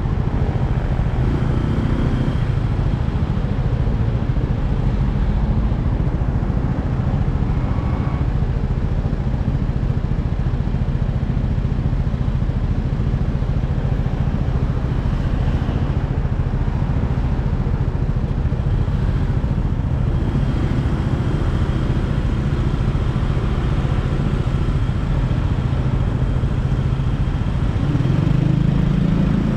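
Motorbike engine running steadily while riding, over a constant noisy rush of wind and road. Near the end the engine noise swells briefly.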